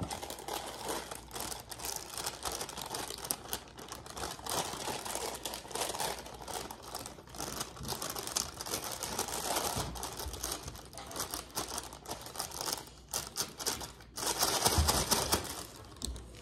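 Clear plastic inner bag of a brownie mix packet crinkling and rustling as it is handled and shaken empty over a metal mixing bowl, a dense run of small crackles with a louder stretch near the end.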